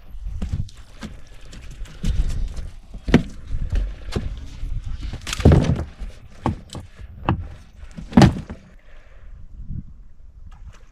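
Irregular knocking and thumping on a fishing boat, with louder bangs about three, five and a half and eight seconds in, dying away near the end.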